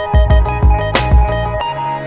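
Background electronic music with a steady beat and a synth melody; the heavy bass and drum hits drop out about one and a half seconds in, leaving a held bass note under the melody.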